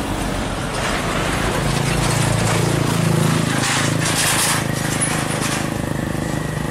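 Road traffic: a car-carrier truck's engine running as it drives past, with small motorcycle engines alongside. The engine hum builds to its loudest a couple of seconds in and eases off after about four and a half seconds.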